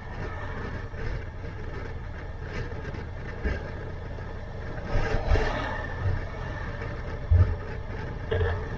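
Motorcycle riding along a road: its engine runs under steady wind rush on the helmet microphone, and oncoming traffic, including a lorry about five seconds in, swells past.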